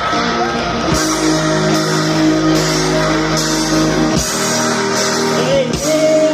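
Live rock band playing loud guitar music, with sustained guitar notes and drums, a cymbal hit about every 0.8 seconds.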